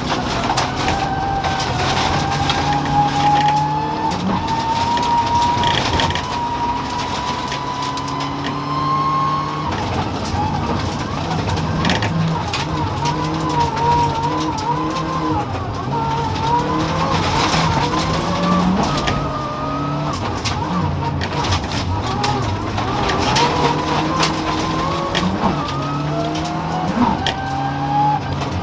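Mitsubishi Lancer Evolution X rally car's turbocharged four-cylinder engine heard from inside the cabin at full stage pace. The pitch climbs steadily for the first ten seconds or so, then rises and dips repeatedly with gear changes and lifts for corners, while gravel clatters against the underbody.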